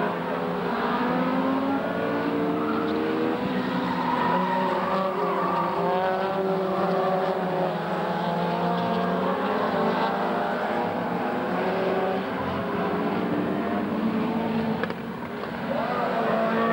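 A pack of saloon race cars racing together, several engines revving at once with overlapping notes rising and falling as they drive through the corners. The sound drops briefly a little before the end.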